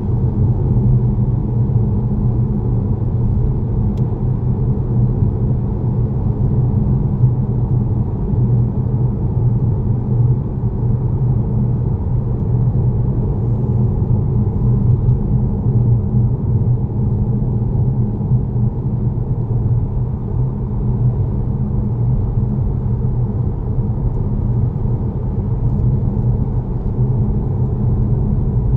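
Steady low rumble of a car driving along an open road, heard from inside the cabin: tyre, engine and wind noise blended together.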